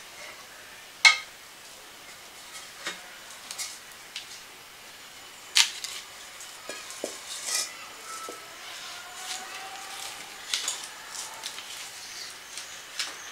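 Scattered sharp knocks and clinks, the loudest about a second in, over a quiet steady background.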